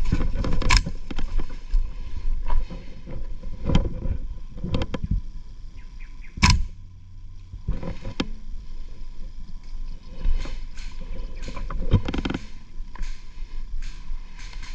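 An airsoft player on the move: gear and clothing rustle and feet scuff, with several sharp knocks. The loudest knock comes about six and a half seconds in.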